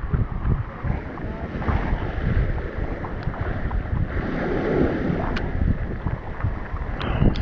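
Strong wind buffeting the microphone in uneven gusts, over the wash of surf against the rocks.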